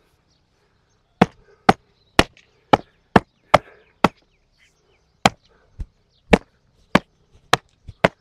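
A hand slapping a leather saddle loudly, in sharp slaps about two a second with a short pause around the middle. This is a check that the horse accepts loud noise around the saddle before the first ride.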